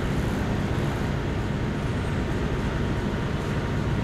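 Diesel-electric freight locomotive approaching with its engine running, a steady low rumble with no change in level.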